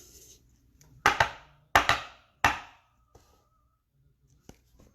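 Trading cards and their pack being handled: four sharp, rustling slaps and scrapes, bunched between about one and two and a half seconds in.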